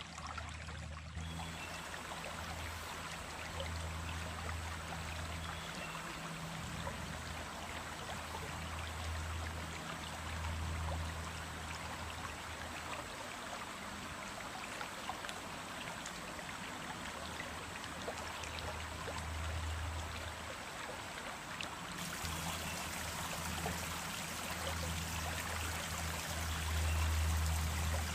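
Running water of a small stream: a steady rushing and trickling, with a low rumble underneath that swells and fades.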